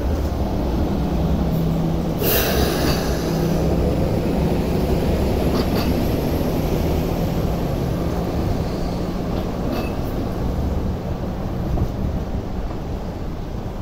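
Two-car MTR Light Rail train rolling past and away on curving track, with a steady low rumble and hum. A sharp clack comes about two seconds in and fainter ones later, as the wheels cross track joints.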